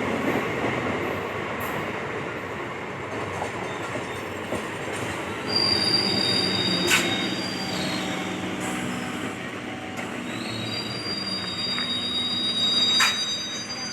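Indian Railways train running on the track: a steady rumble of wheels on rail, with a high wheel squeal twice, midway and again near the end, and two sharp clacks.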